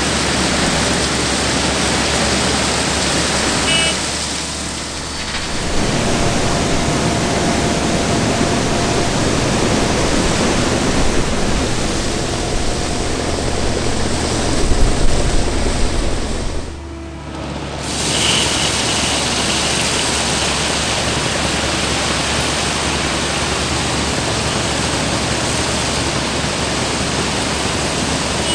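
Plasser & Theurer RMW 1500 ballast cleaning train at work: crushed-stone ballast pours off its conveyor belts into hopper wagons, making a steady, dense rushing of stone over the running machinery. The noise drops briefly twice, about five seconds and seventeen seconds in.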